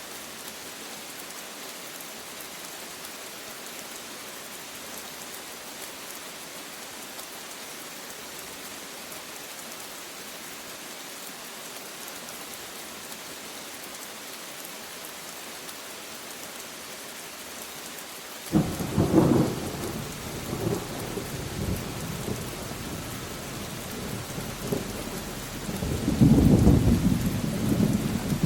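Steady rain falling, joined about two-thirds of the way through by a sudden clap of thunder that rumbles on and swells louder again near the end.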